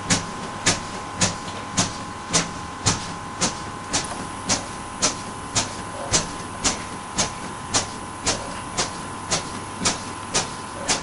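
CPR training manikin's chest clicking with each chest compression, a steady rhythm of about 110 compressions a minute, over a steady hiss.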